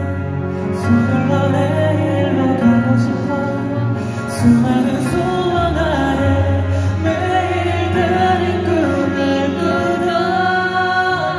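A man singing a ballad live into a microphone over soft backing music, with long held notes, heard through an arena sound system from the audience.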